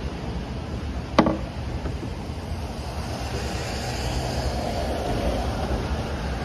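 Wind rumbling on the microphone, with one sharp click about a second in as a hand works on the plastic tail light assembly.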